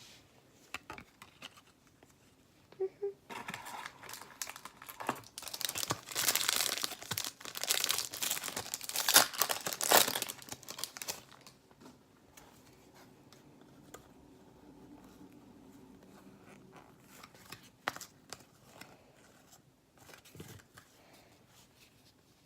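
A hockey card pack wrapper torn open and crinkled by hand, a dense crackling that starts a few seconds in and is loudest over the middle, then dies down. A few light taps follow near the end as the cards are handled.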